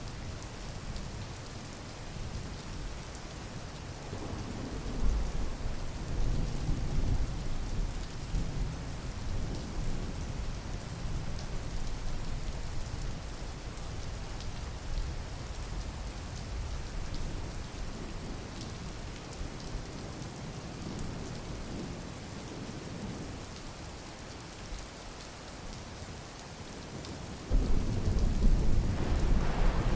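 Steady rain with rolling thunder: a low rumble swells about four seconds in and fades, then a louder clap of thunder starts suddenly near the end.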